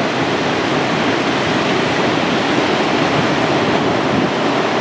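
Atlantic Ocean surf breaking and washing in, a loud continuous rush with no single crash standing out.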